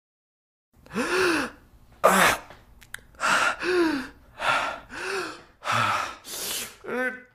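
A man's voice gasping loudly, about nine breathy gasps roughly every two-thirds of a second, each rising and falling in pitch. The string starts about a second in, and the last gasp turns into a rasping groan.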